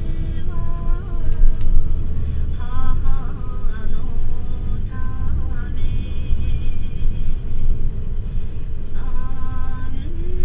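Nissan Diesel RF8 V8 diesel engine of a KC-UA521NAN route bus running under the floor, heard inside the cabin from a rear seat. It gives a heavy low rumble with higher whining tones that shift in pitch every second or so.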